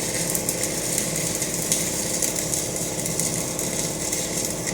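Stick (arc) welding on mild steel: the arc crackles steadily and then cuts off abruptly near the end. A steady low hum runs underneath.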